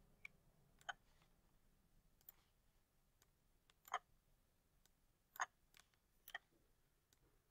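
Faint, scattered computer mouse clicks, about six of them, with near silence between.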